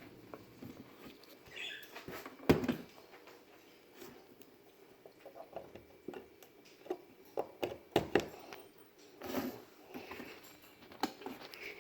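Scattered clicks, taps and rustles of a plug and cord being handled at a wall outlet, with one sharp click about two and a half seconds in and a few more near the end.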